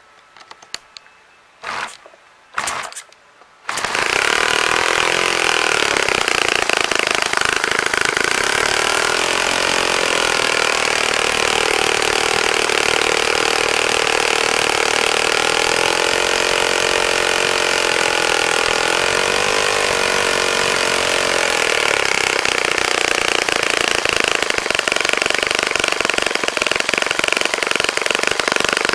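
Saito FA-65 single-cylinder four-stroke glow model airplane engine on its first run after a rebuild: a few short bursts as it is cranked, then it catches a few seconds in and runs steadily with a 12x6 propeller. Its speed drifts up and down while it runs.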